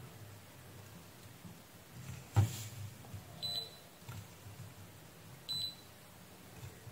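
Kaiweets KM601 digital multimeter giving two short high beeps about two seconds apart as its probes meet test points on a circuit board, each time a new reading comes up. A single sharp click, louder than the beeps, comes about a second before the first beep.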